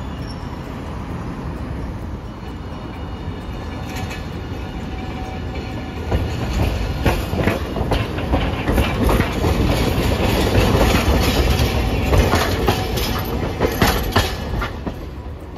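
Hiroden streetcars rolling through a tram junction, their wheels clacking over the points and rail crossings. The run gets louder about six seconds in, as a tram passes close by with a quick run of clacks.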